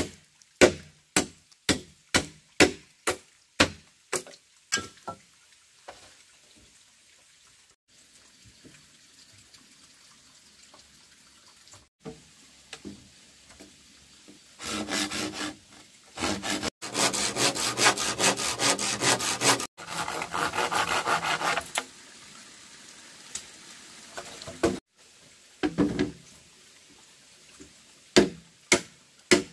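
A machete chopping into bamboo on a wooden log, about two blows a second. In the middle stretch a blade cuts back and forth through the bamboo in fast rasping strokes, and the steady chopping returns near the end.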